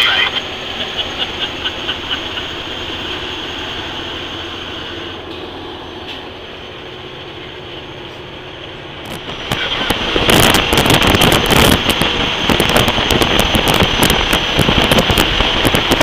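Inside a moving semi-truck cab: the tail of an air train-horn blast cuts off at the very start, then steady engine and road noise. About ten seconds in, a loud, rough rush of wind buffets the microphone, as if through an open cab window.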